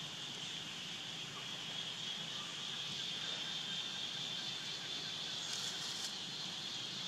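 Steady, high-pitched drone of insects calling, even throughout, with a short burst of hiss about five and a half seconds in.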